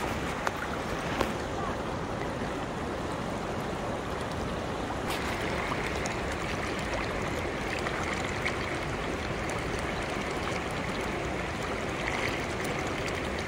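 River current rushing steadily, a constant noise of flowing water that grows a little brighter about five seconds in.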